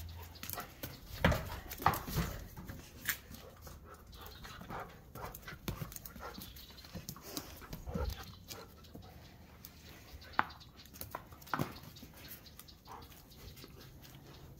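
A husky panting while it plays with a rope-and-ball tug toy on stone tiles. Scattered sharp knocks and scuffs run through it, the loudest about a second and two seconds in.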